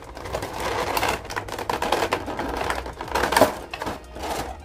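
Clear plastic blister packaging crinkling and crackling as hands flex and pull at the tray, with a louder crack a little past three seconds in.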